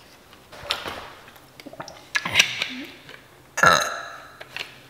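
A person burping three times, about a second and a half apart; the last burp drops low in pitch.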